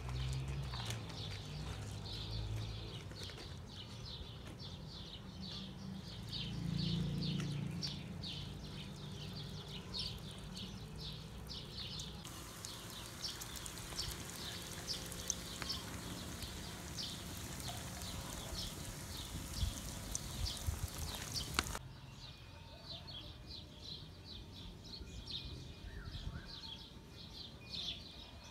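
Small birds chirping rapidly and repeatedly. For about ten seconds in the middle, pirashki dough frying in a pan of hot oil sizzles with a steady hiss that cuts off suddenly.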